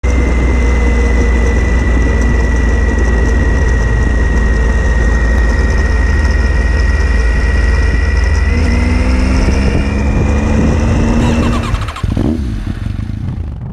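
Motorcycle engine running at road speed, with heavy wind rush on the microphone. Near the end it gives way to a quieter, different sound.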